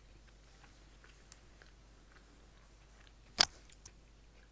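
Mostly quiet room with a few faint ticks and one sharp click about three and a half seconds in.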